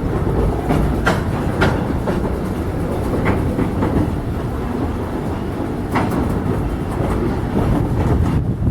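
Freight train rolling through a rail yard: a steady low rumble of wheels on track, with several sharp clicks and clanks from the wheels and couplers.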